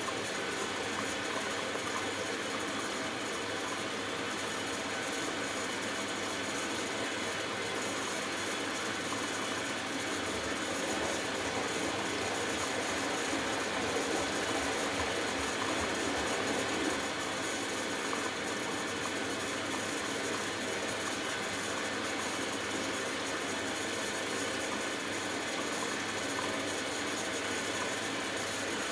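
Hoover Dynamic Next front-loading washing machine running in the early wash stage of its delicates cycle, just after the second fill: a steady hum and hiss that does not change.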